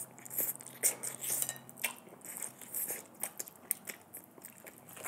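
Close-miked eating of spicy black bean instant noodles: slurping and chewing the noodles, a string of small wet clicks and smacks from the mouth.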